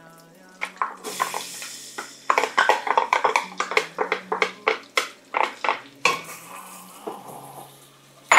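Wooden spatula scraping and knocking against a stainless steel saucepan as chopped onion is scraped from a glass bowl into melted butter and stirred, with a light sizzle. A quick, uneven run of knocks and scrapes starts about a second in and eases off a little past the middle.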